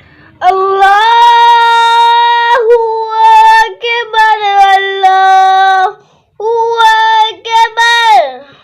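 A high solo voice chanting the adhan, the Islamic call to prayer, in long held, ornamented notes. Two phrases, the second ending in a falling slide near the end.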